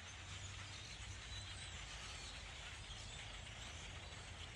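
Large flock of birds, which the recorder believes are grackles, calling all at once as a dense, even chatter with no single call standing out.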